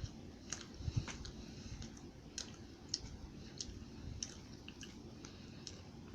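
Faint chewing of a crumb-coated crunchy mini donut: small, irregular crunches and clicks every half second or so, only light "mini crunches" because the donut is not very crunchy.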